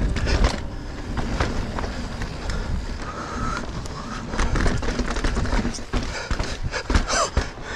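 Mountain bike riding over rough singletrack: tyres rolling on dirt and rock, the bike rattling, and scattered knocks as it crosses a technical section.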